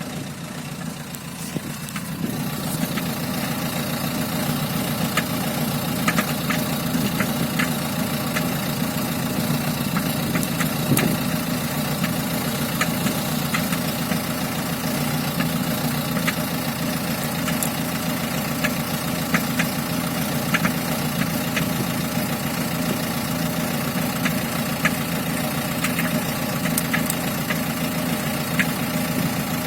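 Small diesel engine idling with an irregular sharp knocking tick over its steady running. The owner calls it a strange sound.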